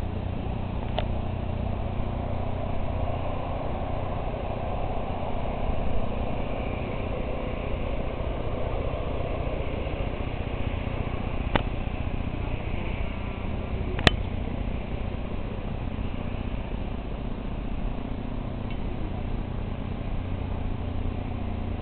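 Distant thunder after a lightning flash: a low rumble that swells about four seconds in and dies away by about nine seconds, over a steady background of wind and town noise. A couple of short sharp clicks come later.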